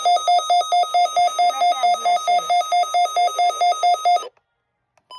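Weather alert radio's alarm: a loud, buzzy electronic beeping at about five beeps a second, signalling an incoming weather alert. It cuts off about four seconds in, and two short tone blips follow near the end.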